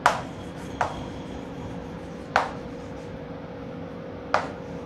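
Chalk writing on a blackboard: four sharp taps of the chalk striking the board at uneven intervals as the letters are written.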